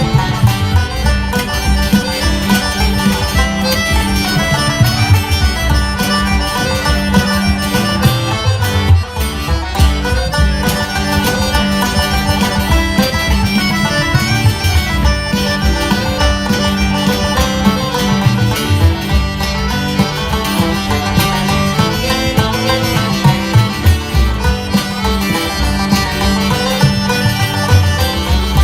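Live folk band playing an instrumental Irish tune, with a steady low note held underneath the melody.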